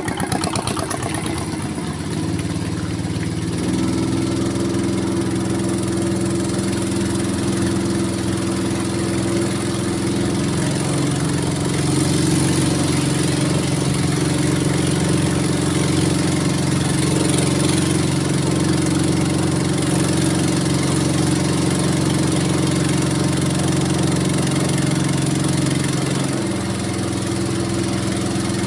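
Small boat's engine running steadily under way across floodwater, its pitch shifting a few times as the throttle changes, about three seconds in, about ten seconds in and near the end.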